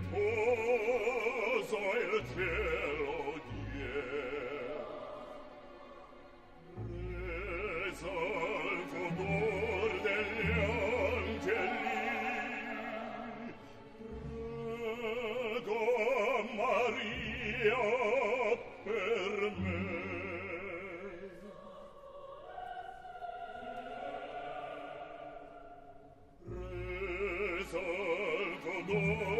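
Operatic bass singing long, legato phrases with wide vibrato, accompanied by orchestra. There are short breaks between phrases, and the music turns softer past the middle before the voice comes back strongly near the end.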